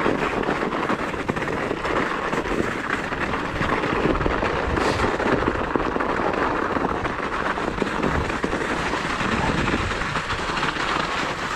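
Mountain bike's knobby tyres crunching over packed snow and ice on a descent: a continuous crackling, rattling noise that stays steady throughout.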